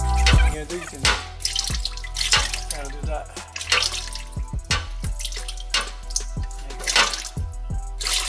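Background music with a steady beat, over automatic transmission fluid pouring and dripping from a partly loosened 6L80 transmission pan into a drain pan.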